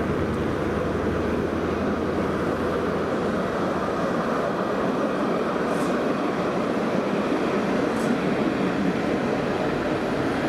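An Alstom Citadis street tram runs past on its tracks: a steady rolling rumble with two brief, faint high squeaks about six and eight seconds in.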